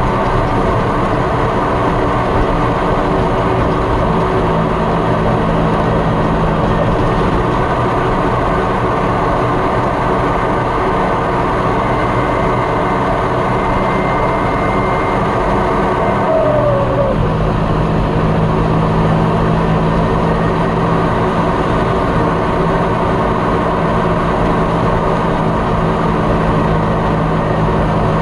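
John Deere 6230 Premium tractor's engine and turbocharger running steadily under way, heard from inside the cab, with the variable-geometry turbo control switched off. A faint high turbo whistle rises out of the engine noise and stops a little past halfway, followed by a short falling whine as the engine note changes.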